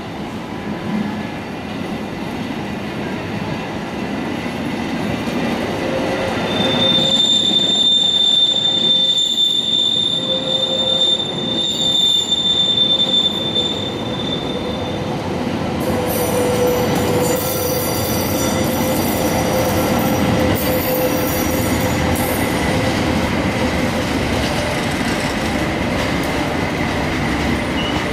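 Narrow-gauge passenger train coaches rolling slowly past over points, with a continuous rumble. The wheels give a steady high-pitched squeal from about a quarter of the way in until about halfway through.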